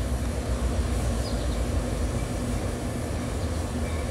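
Diesel freight locomotive approaching under power, a steady low engine rumble with a constant hum.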